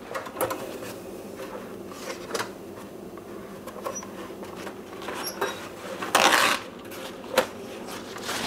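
Light clicks and knocks of a utensil against a baking dish as its rim is cleaned, with a short louder rubbing sound a little after six seconds in and a sharp knock about a second later.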